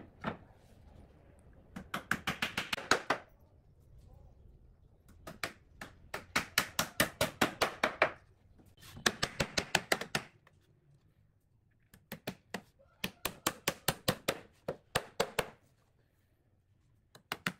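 Claw hammer driving nails into pallet-wood boards: several runs of quick, sharp blows at about five a second, each run ending as a nail is driven home, with short pauses between them.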